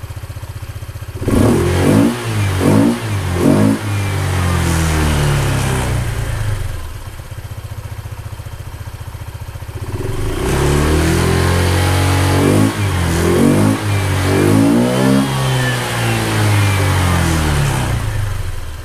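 Honda ADV 150's single-cylinder scooter engine on its factory exhaust, revved hard from idle: three quick blips, a held rev that drops back to idle, then a second run of rising and falling revs before it settles back to idle near the end. It revs up quickly, helped by a variator with 12-gram rollers.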